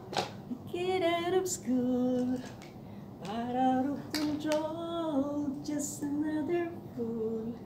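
A woman singing a slow melody in long held notes, with a short pause about two and a half seconds in.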